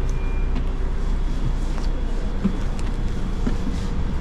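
Steady low rumble of a coach's engine, heard from inside the passenger cabin, with a few faint clicks.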